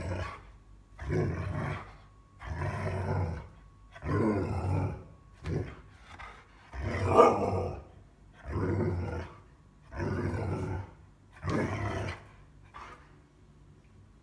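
A pet animal vocalizing insistently in a run of about nine drawn-out calls, each about a second long and one every second and a half or so, the loudest about halfway through. It is begging for apples.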